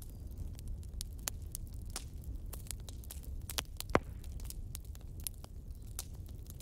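Campfire crackling: irregular sharp pops and snaps over a steady low rumble, with one louder pop about four seconds in.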